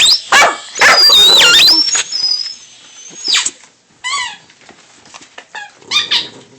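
A boxer puppy's rubber squeaky toy squeaking repeatedly as the puppy bites it. The loudest is a long squeal about a second in whose pitch dips and rises, followed by several short squeaks.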